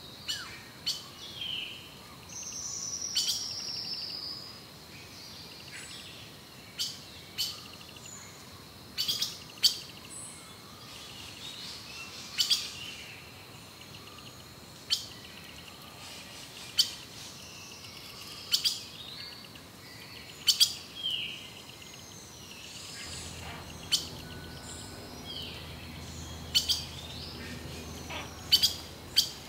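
Birds calling and chirping: short sharp calls every second or two, with a longer falling whistle a few seconds in.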